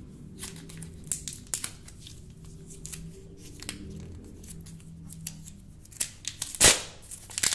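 Fingernails picking and scratching at a phone's plastic protective film, making scattered light clicks and ticks. Near the end the film gives one loud crackling rip as it is pulled away.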